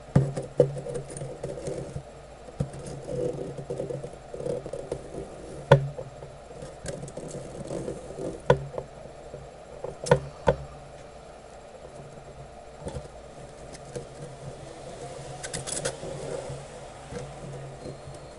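Scattered clicks and taps of small tools and parts being handled on a workbench, over a low steady hum.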